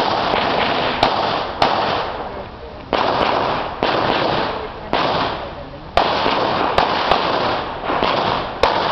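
Pistol shots fired at irregular intervals, about a dozen, some in quick pairs, each with a loud echo that dies away over the following second.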